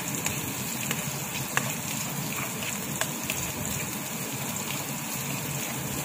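Chopped onions sizzling in oil in a dark wok-style pan, stirred with a plastic spatula that clicks against the pan a few times in the first half.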